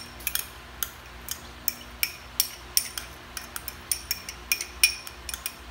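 Metal spoon tapping and scraping chopped garlic out of a small glass bowl into a stainless steel pot: a run of sharp, irregular clinks, about two or three a second.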